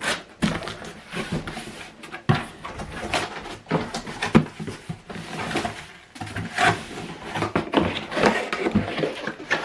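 A cardboard box and its packaging being handled and opened, with irregular scraping, rustling and knocks.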